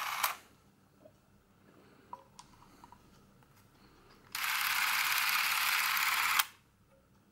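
Revue Super 8 Pocket L cine camera's electric film-drive motor running: a steady whirring run that stops just after the start, a few small clicks of handling, then a second, louder run of about two seconds starting about four seconds in and cutting off sharply.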